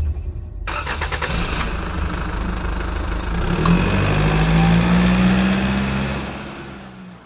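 Car engine starting and revving: it catches suddenly under a second in, the engine note rises a few seconds in and holds, then fades out near the end.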